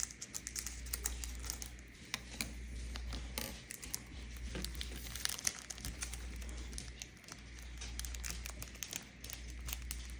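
Foil Pokémon booster pack crinkling and rustling as it is opened and the cards inside are handled, with many small irregular clicks and crackles.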